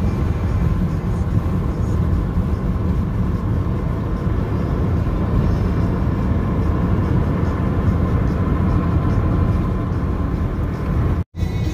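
Steady low road and engine rumble heard from inside a moving car, cutting out abruptly for a moment near the end.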